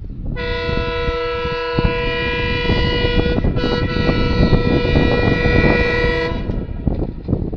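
Train's locomotive horn sounding a multi-tone chord in two long blasts, broken briefly about three seconds in, as the train approaches along the bridge.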